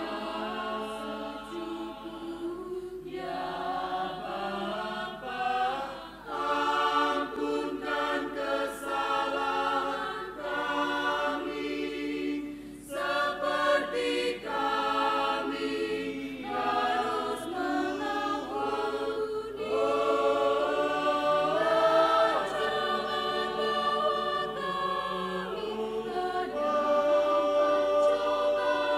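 Choir of women's and men's voices singing, phrase by phrase with short breaks between phrases.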